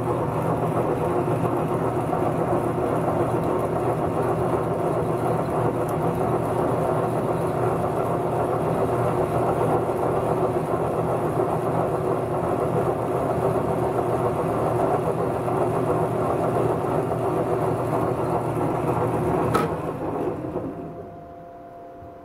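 Logan metal lathe running steadily while a hand-ground chamfering tool chamfers the end of a threaded rod. A click comes a couple of seconds before the end, and the running sound then dies away to a low hum.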